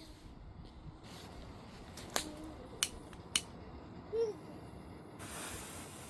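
Three sharp clicks and a brief squeak, then, about five seconds in, a steady hiss starts as a small novelty firework catches and burns.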